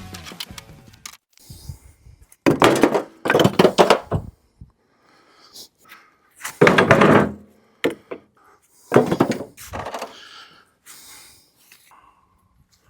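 Broken concrete chunks being handled and tossed down: a series of separate heavy thunks and clatters with short pauses between them.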